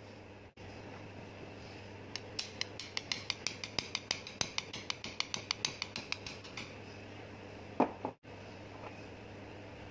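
Rapid run of small metallic clicks, about five or six a second for roughly four seconds, from a metal air fitting being worked by hand on the end of a rubber air hose. A single louder knock comes near the end.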